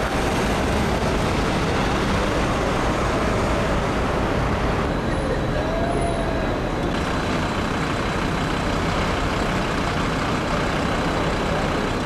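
Steady street traffic noise, a continuous even roar of passing vehicles and engines, with a faint brief rising-and-falling tone about six seconds in.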